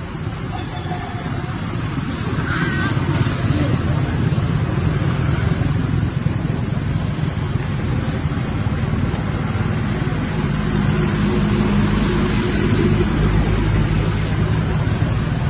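Steady low rumbling background noise.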